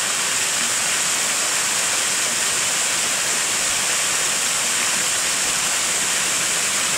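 Small waterfall pouring over a rock ledge into a shallow pool, a steady, even rush of falling water.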